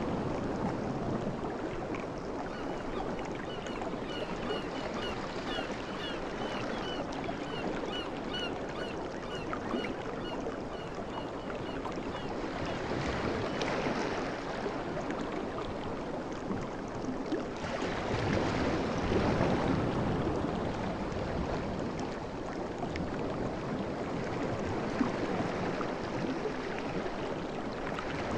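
Sea waves washing in as a steady rush, swelling up twice, about halfway through and again a few seconds later. A run of quick high chirps sounds over the wash in the first part.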